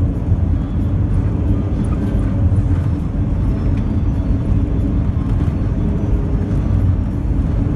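Steady low rumble of road and engine noise from a motorhome driving at highway speed.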